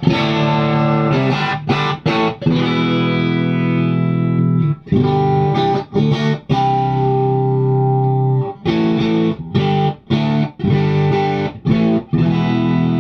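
Fender Custom Shop Masterbuilt 1963 Stratocaster electric guitar played through a Divided by 13 tube amp with 6V6 power tubes. Chords are struck and left to ring, with brief stops between them.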